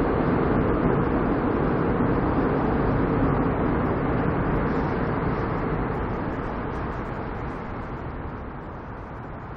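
Seoul Subway Line 7 train crossing Cheongdam Bridge: a steady rumble with a humming tone, fading away over the second half as the train moves off.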